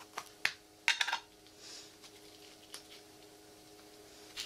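Small metal tin of wax polish handled on an anvil: a few sharp metallic clicks and clinks in the first second or so as the tin is set down and its lid pulled off, then a soft brushing of a cloth in the wax.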